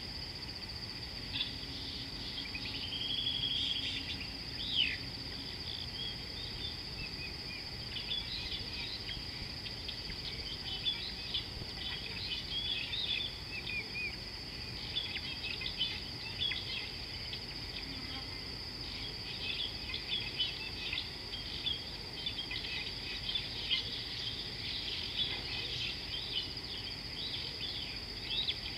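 Steady, unbroken high-pitched insect drone, with many short bird chirps and a few whistles over it, including an arched whistle a few seconds in.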